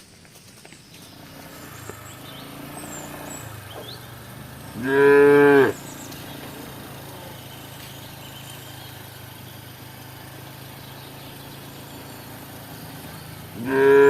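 Cow mooing: two short, loud moos about nine seconds apart, the second right at the end, over a steady low hum.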